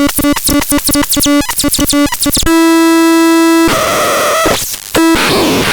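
Excrementon 320 electronic noise instrument making harsh synthesized sound. First come rapid stuttering buzzy pulses, about five a second. Then a single buzzy tone is held for about a second, followed by a noisy sweeping wash broken by a short tone.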